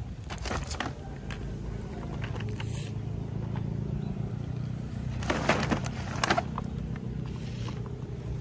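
Plastic toy blister packs rustling and crackling as they are handled and hung on branches, in brief bursts, the loudest lasting about a second past the middle. Under it runs a steady low drone.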